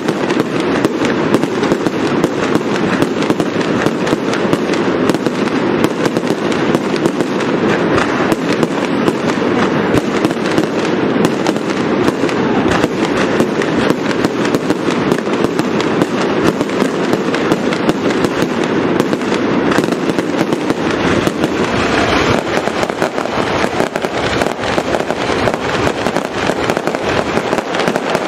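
Aerial fireworks bursting in a dense, unbroken barrage: bangs and crackles packed so close that they run together with no pause.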